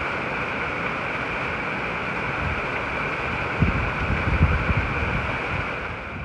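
Steady rushing of a river, with wind gusting on the microphone from about halfway through.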